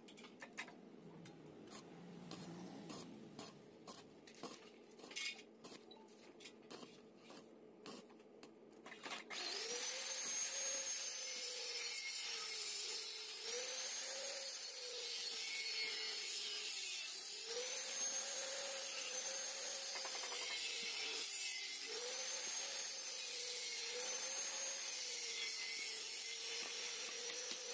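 Arc (stick) welding on a motorcycle muffler. For about nine seconds the electrode crackles in short, irregular bursts, then it settles into a louder, steady frying hiss with a wavering hum that swells every couple of seconds.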